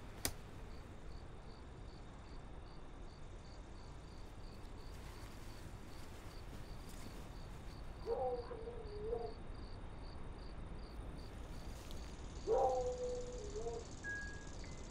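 Crickets chirping steadily at night, about three chirps a second. A single sharp click comes just after the start, as a bedside lamp is switched off. Two lower, drawn-out sounds of about a second each follow later on.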